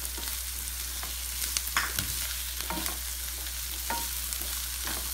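Chopped onions, garlic and green chilies sizzling steadily in olive oil in a nonstick wok, with the scrape and tap of a plastic spatula stirring them every so often.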